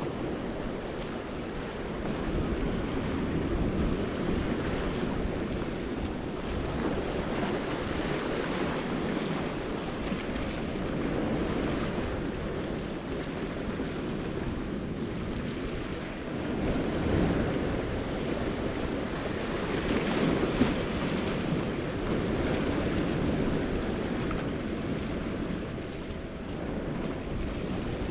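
Ocean surf washing and breaking, with wind buffeting the microphone; the wash swells louder twice past the middle.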